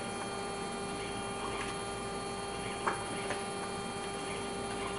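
Steady electrical hum of running laboratory equipment, with one soft click about three seconds in.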